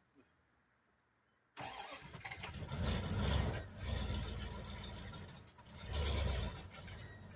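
Near silence, then about a second and a half in a vehicle engine cuts in, running with a deep rumble and surging louder several times as it is revved. The engine is that of the homemade Doodlebug skidder built from a Dodge W250 pickup.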